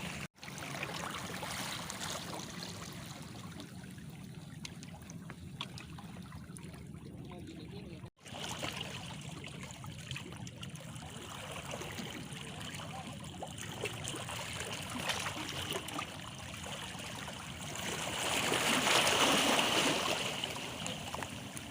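Small sea waves lapping and splashing against stones in a continuous wash, with a louder surge of water about three-quarters of the way through. The sound cuts out for an instant twice.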